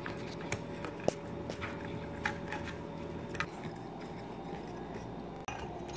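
Scattered light clicks and taps of brass ceiling-fan light fixture parts being handled and fitted back together, the sharpest a little over a second in, over a faint steady hum in the first half.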